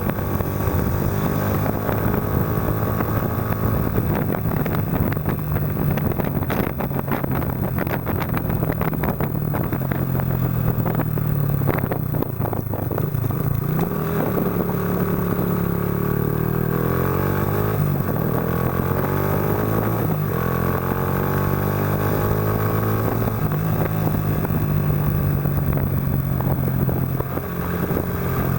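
Yamaha Factor 125's single-cylinder four-stroke engine running through a Roncar aluminium aftermarket exhaust while being ridden. Its pitch steps up and down with throttle and gear changes, revving up several times around the middle.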